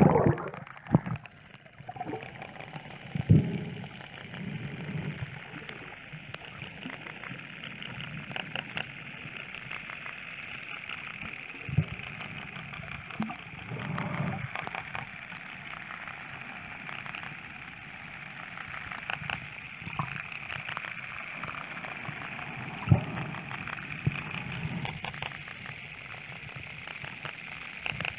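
Underwater recording made with a phone in a plastic case: water sloshing and gurgling with low swells of sound, a scatter of faint clicks, and a few sharper knocks.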